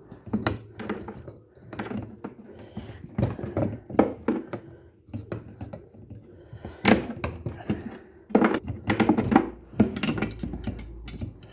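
Metal clinks and knocks of a 13 mm wrench working loose the self-locking nut on a washing machine's gearbox pulley, with a quick run of clicks about eight and a half seconds in.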